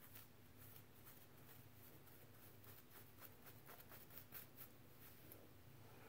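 Faint scratching of a plastic fine-tooth comb dragged over the scalp to lift flakes of scale: a run of quick, light strokes that come thickest about three to four and a half seconds in.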